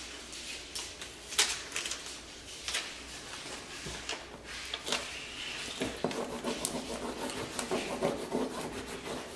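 Adhesive paper labels peeling off their backing strip and being pressed and rubbed onto a cardboard box: paper rustling and rubbing, with scattered light taps on the cardboard.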